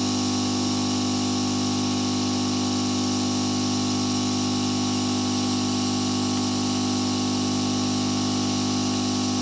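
Steady, unchanging machine hum made of several constant tones over a faint hiss, with no separate clicks or knocks.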